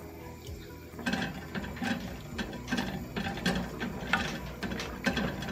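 Spoon stirring rice and octopus in liquid in a metal pot, scraping and knocking against the pan in a quick, irregular rattle from about a second in.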